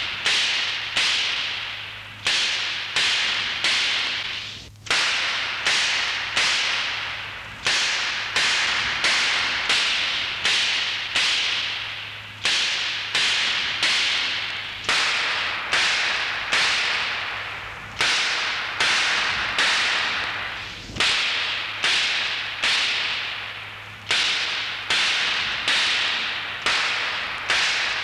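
A long series of sharp cracks, each trailing off in a hissing decay, coming in runs of about two a second with short pauses between the runs, over a steady low hum.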